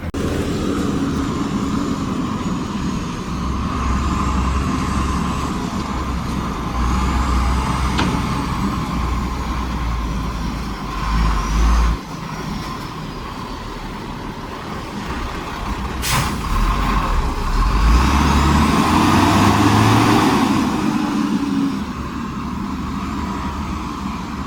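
Diesel engines of heavy construction machinery running under load, swelling louder about three quarters of the way through. Two sharp knocks, one about a third of the way in and one about two thirds in, and faint high squeals come over the engine sound.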